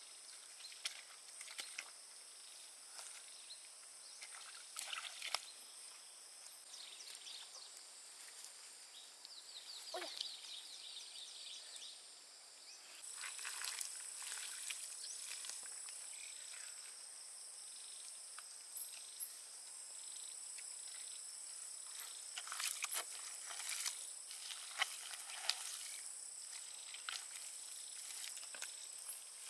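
A steady, high-pitched insect drone that grows louder about halfway through, with scattered clicks and light knocks.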